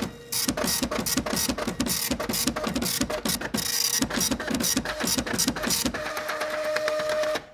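Added sound effect of rapid, irregular mechanical clicking, several clicks a second, with a steady tone joining in near the end; it cuts off suddenly.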